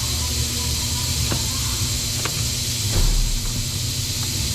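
Steady background hiss and low rumble, with a few faint light clicks about a second apart as plastic car-door trim pieces are handled, and a low thump about three seconds in.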